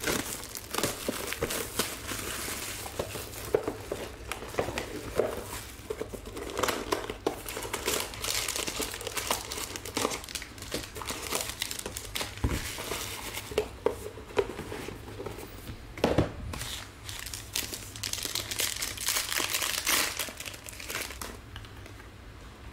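Gold foil wrapper of a 2016-17 Black Gold soccer card pack crinkling and tearing as it is opened by hand, a dense run of irregular crackles that dies down near the end.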